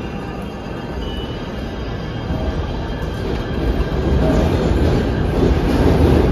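PATH PA5 rapid-transit train running along the station platform, its rail and running noise growing louder about four seconds in.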